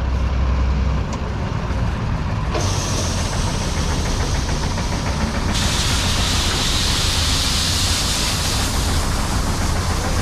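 Combine harvester running at a steady hum while its full grain tank is unloaded. About two and a half seconds in a hiss of pouring wheat starts, and it grows louder and brighter about three seconds later.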